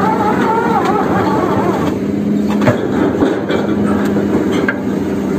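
Sany SR150C hydraulic rotary drilling rig running steadily with a low, constant engine hum while its drilling bucket works in the mud. A few sharp metallic knocks come around the middle.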